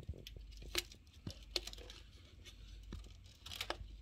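Faint scattered clicks and plastic crinkling as a flat ribbon cable, with a thin polythene strip laid over some of its pins, is pushed into its connector on a TV's panel board. The clicks are irregular, with louder ones about a second in, just past halfway, and near the end.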